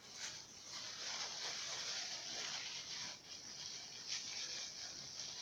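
Close rustling and rubbing from hands kneading and handling soft modelling dough, a run of short scratchy strokes.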